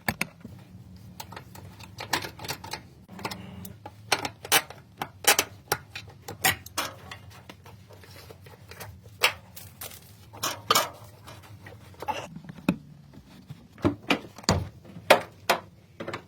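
Irregular metallic clicks, clinks and taps of hand tools and drum brake parts being handled and fitted, over a low steady hum.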